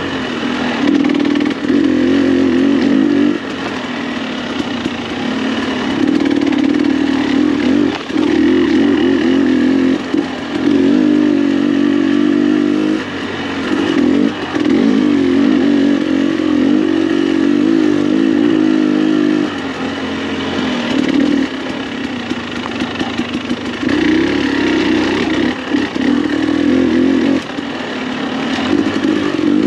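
2021 KTM 300 XC-W TPI's 300 cc two-stroke single-cylinder engine running through an FMF spark-arrestor muffler, the throttle opened and closed in uneven spurts every second or few as the bike is ridden through tight turns.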